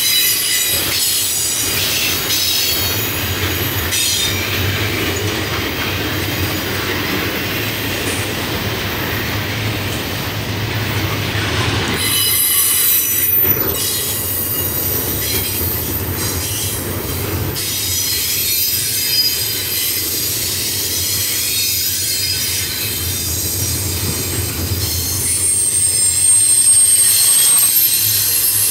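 Double-stack container train rolling past, its steel wheels squealing on the rail in several high steady tones over the rumble and clatter of the well cars. The squeal fades and swells, with a sharp high tone near the end.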